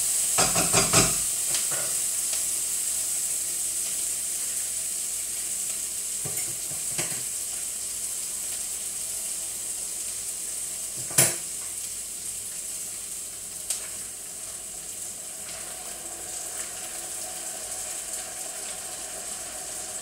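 Chopped onion frying in hot oil in a wok, a steady sizzle, with a spatula scraping and knocking against the wok in the first second or so. A single sharp click about eleven seconds in.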